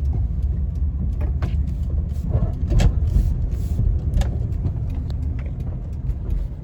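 Inside the cabin of a 1999 Lexus RX 300, its 3.0-litre V6 engine is running with a strong, uneven low rumble as it struggles under load through a turn. The engine is misfiring on cylinder 6, which the owner blames on a bad ignition coil. A few short knocks sound over it.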